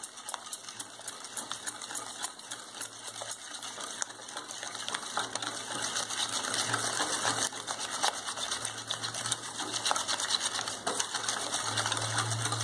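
Wire balloon whisk beating eggs into a butter, oil and sugar mixture in a glass bowl: a rapid, even clicking of the wires against the glass that grows louder. A faint steady low hum sits underneath.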